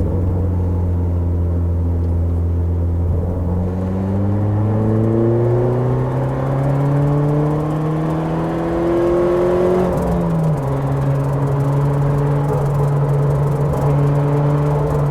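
Car engine pulling under acceleration: a steady note for the first few seconds, then rising in pitch for about six seconds, dropping suddenly at a gear change about ten seconds in and running on steadily.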